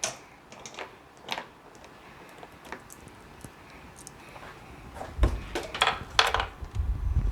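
Plastic side cover of a portable inverter generator being handled and worked loose. A few light clicks come first, then from about five seconds in a cluster of louder plastic knocks and rattles with low thumps.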